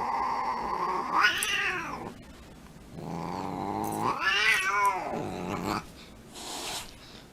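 A domestic cat growling low and long, rising twice into drawn-out yowls, with a short hiss near the end.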